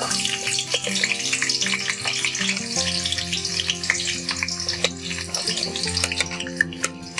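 Sliced onions hitting hot oil in a kadai and sizzling, a dense hiss that starts as they go in, with scattered clicks as pieces drop into the pan.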